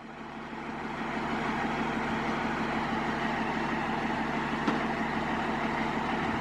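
Fire truck's diesel engine running steadily, fading up over the first second or so, with a short faint click about two-thirds of the way in.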